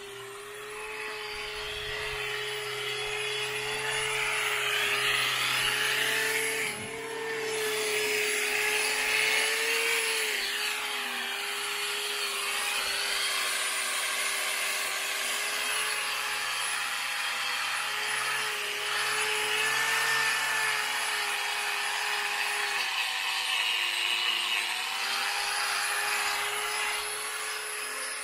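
Angle grinder running with its abrasive disc scouring old paint off a cast-iron engine bedplate, taking it back to bare metal. A steady motor whine runs under a rasping scrape that swells and fades as the disc is pressed and moved, with a brief let-up about seven seconds in.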